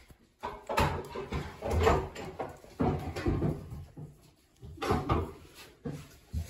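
Household knocks and clattering in several short runs, with brief pauses between them.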